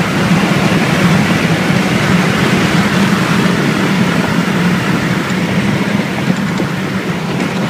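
Inside a moving car: a loud, steady engine drone mixed with road and wind noise, easing off slightly near the end, heard from the cabin of a Volvo S60 R with a turbocharged inline-five.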